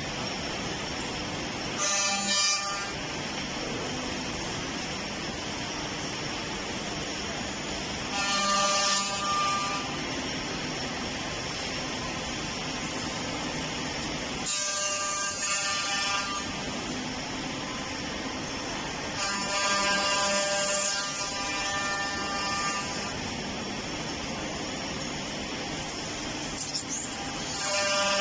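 CNC tenoner and mortiser running, a steady mechanical noise broken five times by a high-pitched whine lasting one to three seconds, as the cutting spindles work the wood.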